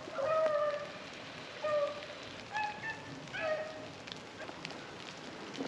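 Beagles baying on a rabbit's trail: a handful of short bawls come at irregular intervals of about a second. Dry leaves rustle and crackle faintly underfoot between them.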